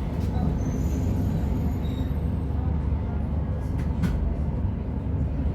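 Class 153 diesel railcar heard from on board while moving: a steady low rumble of the underfloor diesel engine and wheels on the rails, with a sharp click about four seconds in.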